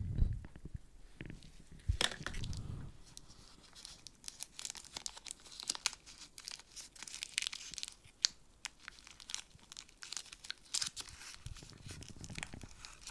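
Faint crinkling, rustling and small tearing of a halogen bulb's packaging being opened and unwrapped by gloved hands, with a louder rustle about two seconds in and then scattered small crackles.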